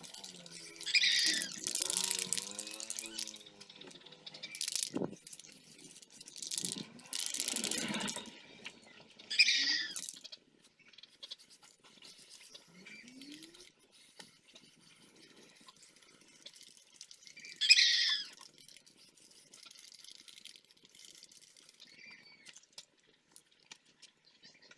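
Aerosol spray-paint can spraying in short bursts of hiss, a few longer ones in the first ten seconds and a brief one about eighteen seconds in. A drawn-out, wavering animal call sounds under the first burst.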